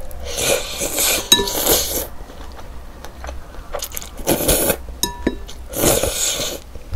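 Noodles slurped in from chopsticks, three times: a long pull over the first two seconds, then two shorter ones near the end, with chewing and a few light clicks of the chopsticks against a glass bowl.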